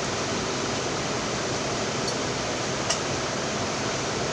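Steady hiss of air from a running electric fan, with two light clinks about two and three seconds in.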